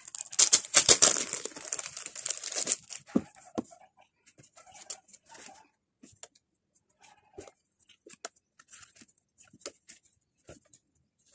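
Loud rustling of a thin sheet of paper for about the first three seconds as it is lifted and turned. After that come scattered light taps and short shuffles as stiff photo prints are leafed through.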